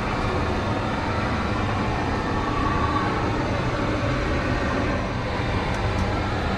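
Tu-134 airliner's Soloviev D-30 turbofan engines running: a steady low rumble with a faint high whine over it.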